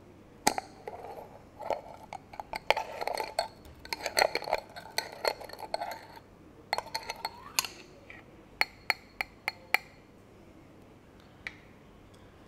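Metal screw-top lid being twisted off a small glass jar: a sharp click as it breaks loose, then several seconds of grating and clinking of the lid's threads against the glass. It is followed by four sharp glassy clinks in a row and one faint click near the end.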